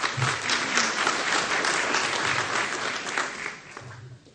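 Audience applauding in a large crowd, dying away in the last second or so.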